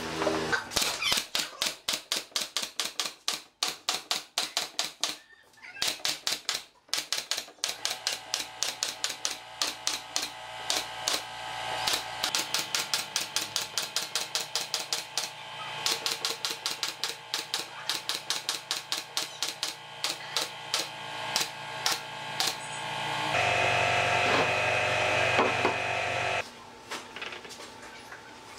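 Pneumatic brad nailer firing brads into wooden boards in rapid runs of sharp shots, about three to four a second, with short pauses between runs. Near the end the shots stop and a steady mechanical hum runs for about three seconds.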